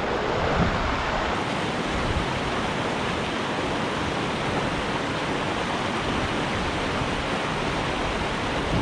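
Whitewater rapids on a river rushing steadily, a continuous hiss of fast, churning water.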